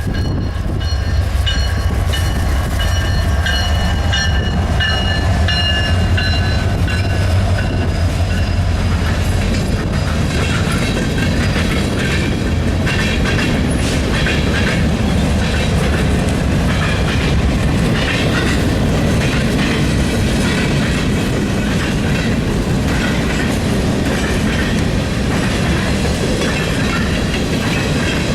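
Freight train rolling past: a diesel locomotive's low engine drone with high whining tones over roughly the first ten seconds, then the freight cars passing with a steady rumble and rhythmic clickety-clack of wheels over the rail joints.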